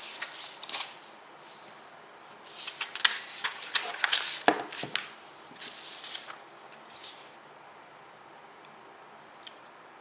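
Sheets of paper being handled and swapped: rustling and sliding, with sharp paper flicks and taps in spells over the first seven seconds, then a single tap near the end.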